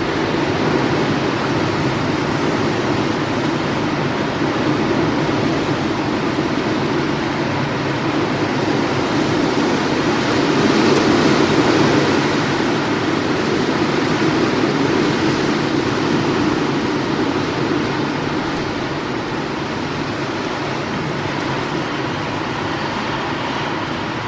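Wind sound effect: a steady rush of wind that swells into a stronger gust about halfway through, then eases off.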